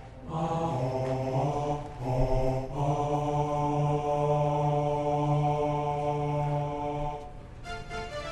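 Low male chanting in long held notes on a steady pitch, the longest held for about four seconds: a ritual chant. Near the end it stops and keyboard music takes over.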